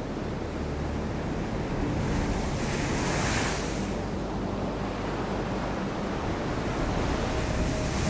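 Storm surf: heavy waves break around concrete groynes and wash up over a pebble shore in a continuous noise. A breaking wave's hiss swells about three seconds in and again near the end. Wind buffets the microphone with a low rumble underneath.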